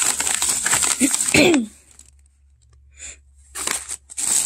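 A thin plastic bag crinkling and rustling as a hand rummages inside it, stopping in the middle and starting again near the end. A short falling voice-like sound comes about a second and a half in.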